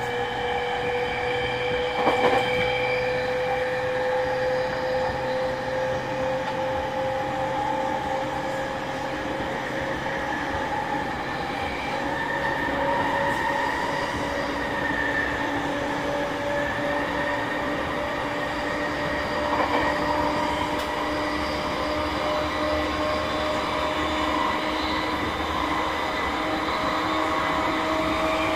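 E231 series 1000-numbered electric train heard aboard a motor car while running: the VVVF inverter and traction motor whine climbs slowly and steadily in pitch over the wheel and rail running noise. A single sharp knock comes about two seconds in.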